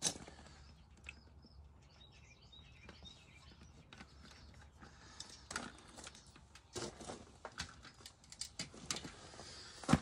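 Several short squirts from a hand trigger spray bottle of soapy water onto a freshly plugged tractor tire, a leak check on the plug: one right at the start, then a scatter of them in the second half. Faint bird chirps about two seconds in.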